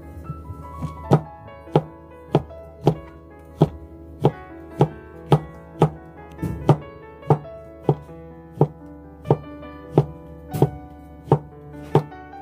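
Kitchen knife slicing fresh shiitake mushrooms on a plastic cutting board: a sharp knock of the blade on the board at an even pace, about one every half second to the second, over background music.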